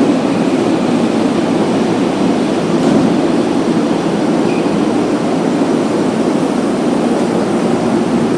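Steady, even hum and rumble of a subway train standing at an underground station platform.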